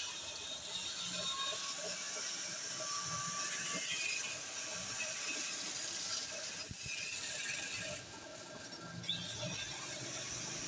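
Lathe turning a rod while the cutting tool takes a cut: a steady hissing, scraping noise with faint whining tones. It drops off briefly about eight seconds in.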